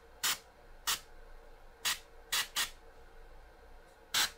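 Gravity-feed airbrush giving about six short, separate spurts of hiss as the trigger is pulsed, unevenly spaced: quick focus sprays of shading paint held close to a miniature.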